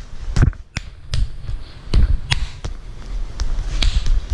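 A quick, irregular series of sharp slaps, each with a dull thump, from hands and forearms striking during Wing Chun arm drills.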